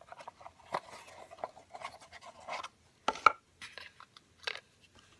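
A small gift box being opened and its contents handled: irregular scraping, rubbing and clicks of the box and packaging, with a sharper knock a little after three seconds in.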